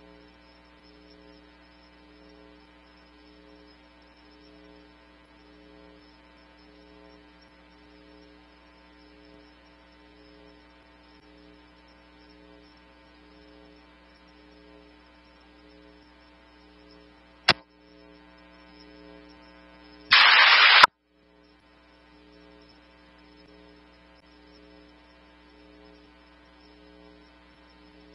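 Police radio scanner feed idling between transmissions with a steady electrical hum. About 17 seconds in there is a single sharp click, and about three seconds later a loud burst of radio static lasting under a second.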